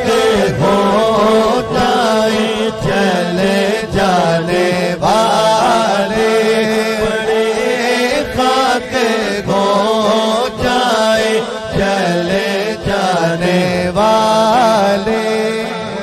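A man singing an Urdu naat into a microphone, drawn-out ornamented phrases with fast turns of pitch, over a steady drone underneath.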